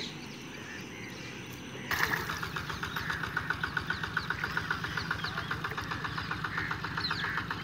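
A small engine starts up suddenly about two seconds in and keeps running with a rapid, even beat.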